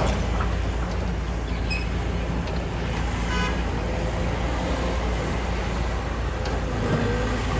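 Heavy diesel machinery running steadily: the engines of excavators and trucks at work, a continuous low rumble.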